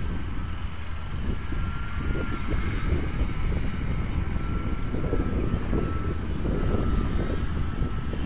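Wind buffeting the microphone in gusts, with the thin, steady whine of a small electric RC foam plane's motor and propeller flying overhead, wavering slightly in pitch.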